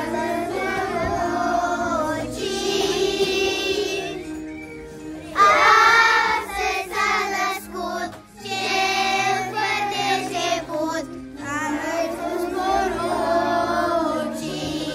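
A group of young girls singing together over a recorded instrumental backing track, one voice loudest and closest about five seconds in.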